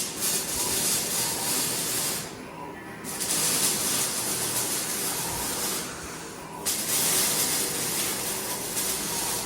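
Radial fan impeller spun up on a balancing stand, its vanes driving a loud rush of air like a hiss, in three stretches that start and stop abruptly over a steady lower rumble.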